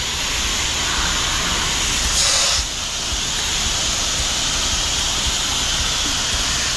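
Pressure washer running with its wand spraying, a steady hiss of water over the low drone of the engine; the spray briefly gets brighter and louder about two seconds in. The washer is downstreaming sodium hypochlorite solution onto a pool screen enclosure.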